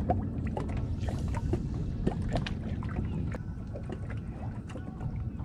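Small waves lapping against a fishing boat's hull, with scattered light taps and knocks.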